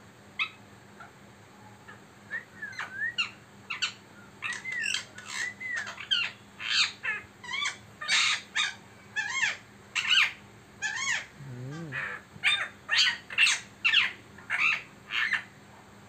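Indian ringneck parrot calling: a long run of short squawks and chirps, several a second, starting about two and a half seconds in after a single call at the very start.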